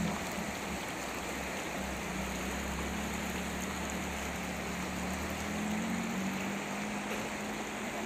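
Shallow stream running over stones, with a Maruti Suzuki Gypsy's engine running faintly as it drives away over the gravel riverbed; its low rumble fades about five seconds in while a thin engine hum lingers.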